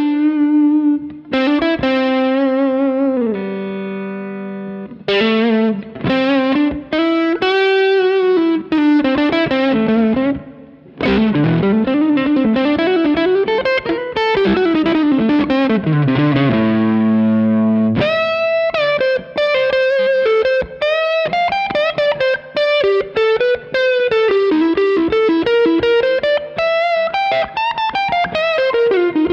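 B&G Little Sister Private Build electric guitar played through an overdriven Suhr Badger 35 amp, with reverb added. It plays single-note lead phrases with string bends and slides, and lets a few held notes ring out.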